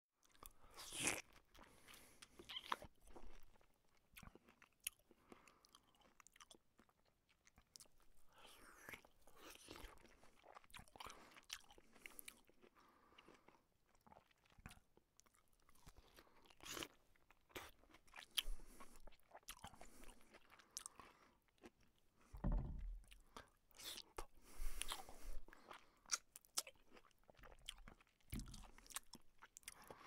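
A person eating close to the microphone: irregular wet mouth clicks, chewing and short slurps, with a few louder bursts about a second in and again in the last third.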